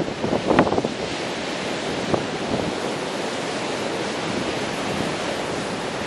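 Ocean surf breaking on a sandy beach, a steady wash of whitewater noise. Wind gusts on the microphone, most strongly about half a second in and again briefly about two seconds in.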